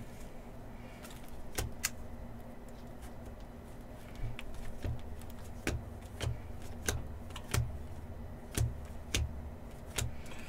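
Freshly unwrapped baseball trading cards being flipped through one at a time, each card giving a short flick or snap, about one a second.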